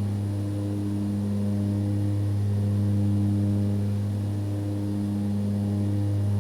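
Aircraft engine drone in steady level flight: a constant low hum with evenly spaced overtones, swelling and easing slowly in loudness.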